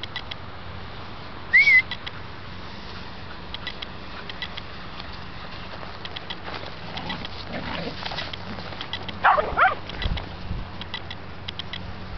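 Shetland sheepdogs barking: one short, high yip about a second and a half in, then a quick run of several barks and yips about nine seconds in.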